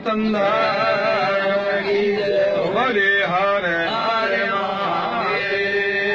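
Men's voices chanting a Hindu devotional aarti, wavering melodic lines over a steady held drone note.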